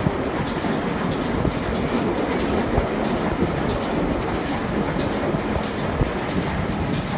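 Steam-hauled passenger train running along the line: a steady rumble with carriage wheels clicking over the rail joints, heard at an open carriage window. A Stanier Black 5 steam locomotive hauls the train.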